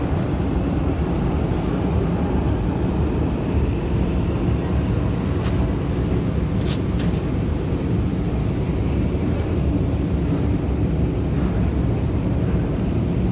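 Steady low rumble of a moving escalator and the Underground station hall around it, with two brief sharp clicks about five and a half and seven seconds in.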